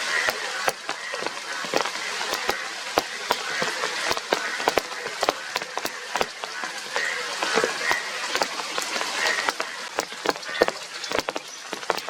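Rain falling, with drops striking a hard surface in many sharp, irregular ticks over a steady patter. Indian bullfrogs call faintly a few times, in the second half.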